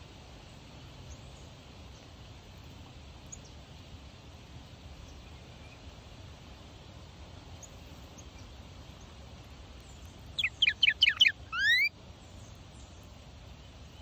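Female northern cardinal singing a short song about ten seconds in: a quick run of about six down-slurred whistled notes, then one longer rising note, about a second and a half in all.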